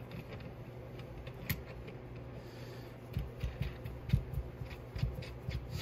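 Light clicks and knocks of a sight pusher tool being handled and adjusted on a pistol slide: one click about a second and a half in, then a run of small knocks and clicks over the last few seconds.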